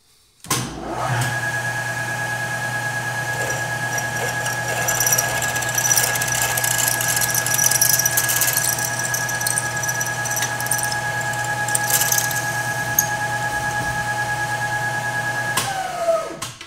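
Machine spindle starting up and a drill cutting steadily into a cylinder head, enlarging an old 10 mm rocker stud hole for a 7/16-inch stud. It makes a steady whine with scratchy cutting noise, and its pitch falls as the spindle winds down near the end.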